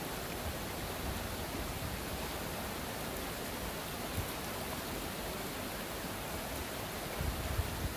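Steady rushing of a fast-flowing river over rocks and gravel. Near the end, a brief low rumble like wind buffeting the microphone.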